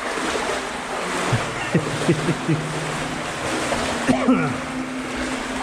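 Legs wading through water in a flooded tunnel, a steady sloshing and splashing. A few short sounds that fall in pitch come through about two seconds in and again near the four-second mark.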